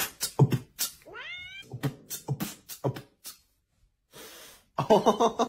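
A cat vocalising: a quick string of short, sharp sounds, with one rising meow about a second in and another pitched call near the end.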